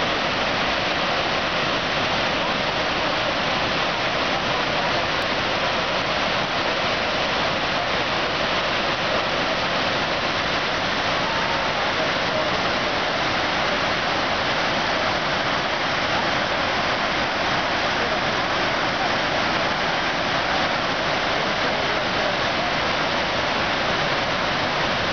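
Floodwater pouring over a concrete dam spillway and crashing into spray below: a loud, steady rush of water that does not let up. The dam is in flood, with the whole spillway overflowing.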